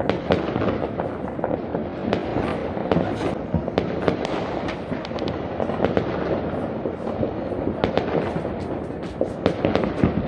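Fireworks and firecrackers going off in many places at once: a dense, continuous din of overlapping bangs with many sharp cracks scattered throughout.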